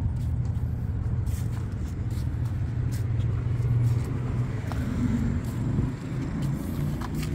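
A car's steady low rumble, with a few light clicks over it.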